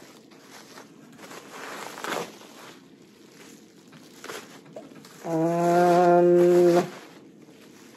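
Plastic bubble wrap crinkling and rustling as a tablet is slid out of its pouch. About five seconds in, a loud steady hum at one low pitch is held for about a second and a half, then stops.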